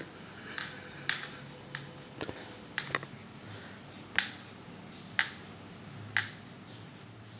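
A series of sharp clicks, irregular at first, then three louder ones evenly spaced about a second apart, over a faint low hum.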